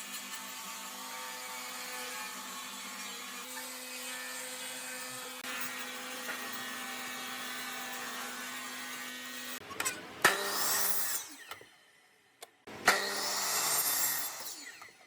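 Woodworking power tool: a steady motor hum, then two separate bursts of rough cutting or sanding noise, each about a second and a half long.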